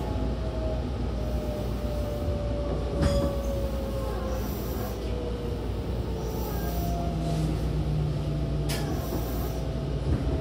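Tobu 20400 series electric train heard inside the passenger car, its Toyo GTO VVVF inverter and traction motors giving a whine that falls in pitch as the train slows into a station, over steady rumble from the wheels on the rails. Two sharp knocks come from the wheels, about three seconds in and again near the end.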